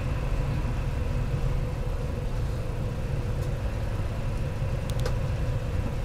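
Steady low rumble of road and engine noise inside a moving car's cabin, with a faint steady hum over it. Two faint clicks come a few seconds in.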